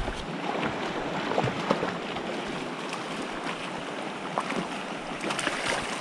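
Clear mountain stream rushing and burbling steadily, with a few brief sharper ticks mixed in.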